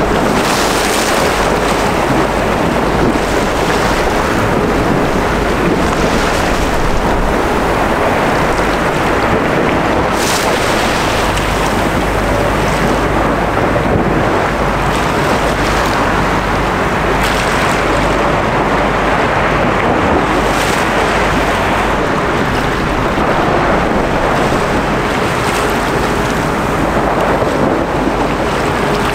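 Steady wind rushing on the microphone over choppy water, with a faint hum near the end.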